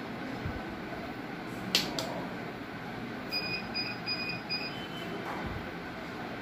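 Steady background rumble and hiss, with a sharp click just under two seconds in and then four short, evenly spaced high beeps.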